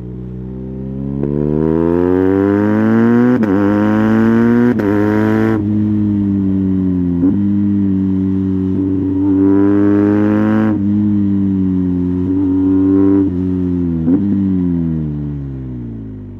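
2020 BMW R 1250 GS boxer twin through an SC Project Adventure titanium slip-on exhaust with its dB-killer fitted, heard on board: it pulls hard with a rising pitch through two brief dips at upshifts, drops off when the throttle closes, holds steady, pulls again, then gives a couple of sharp blips and falls in pitch as the bike slows.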